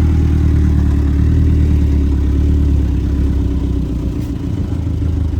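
Vehicle engine running steadily while driving off-road, a strong low drone that eases off a little about three seconds in.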